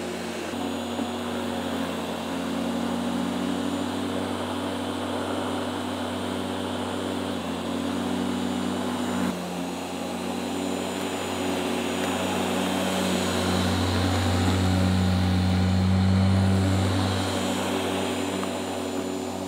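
Corded electric rotary lawn mower running and cutting grass: a steady motor hum under the whir of the blade. It grows louder for a few seconds past the middle.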